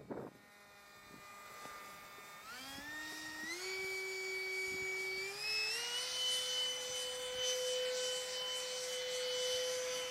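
Electric ducted fan of a model F-22 Raptor jet (Wemotec Midi Fan driven by a Mega brushless motor) whining, its pitch climbing in three steps over the first few seconds as the fan speeds up, then holding steady with a rushing hiss over it.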